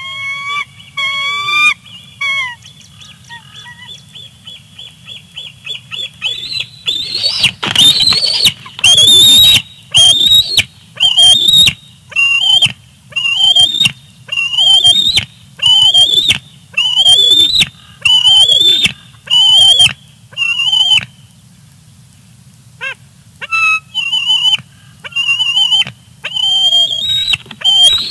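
Bald eagles calling in the nest: a run of high squeeing calls repeating about once a second, each rising briefly and then sliding down in pitch. The calls pause for a couple of seconds about three-quarters of the way through, then start again.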